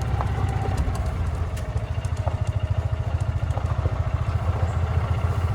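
Small engine of a gas golf cart running, a steady rapid low pulsing.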